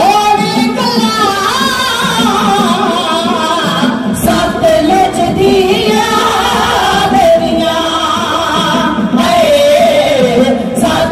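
Singing: a voice holds a long, wavering melody over steady musical accompaniment.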